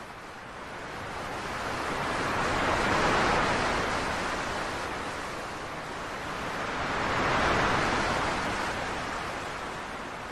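Ocean surf washing onto a beach: the noise of the waves swells and falls twice, peaking about three seconds in and again about seven and a half seconds in.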